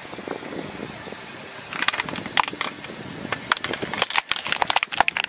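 Red plastic toy car being crushed under a car tyre: its plastic body cracks and snaps in a string of sharp cracks that starts about two seconds in and comes thickest near the end.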